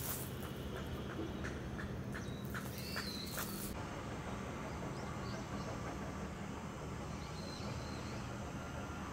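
Outdoor ambience: a steady low hum with faint, scattered chirping. In the first few seconds come a few light metallic clicks as a brass candle lantern's wire bail is hung on a lantern stand's hook.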